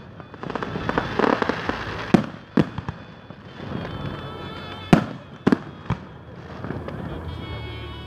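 Aerial firework shells bursting overhead: a spell of crackling from glittering stars in the first two seconds, then five sharp bangs, two about two seconds in and three more around five to six seconds.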